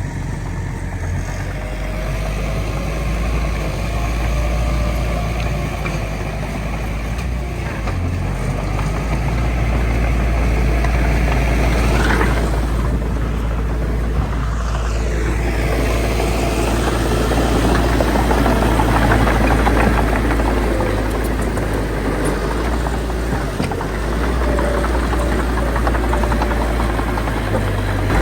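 Bulldozer's diesel engine working steadily under load, its pitch rising and falling as the throttle changes, with a constant deep rumble.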